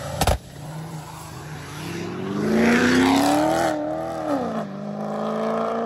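A nitrous-fed minivan and a Corvette accelerating hard from a standing start in a drag race. The engine notes climb for about two seconds, drop at a gear change a little past the middle, then climb again as the cars pull away. There is a sharp click just after the start.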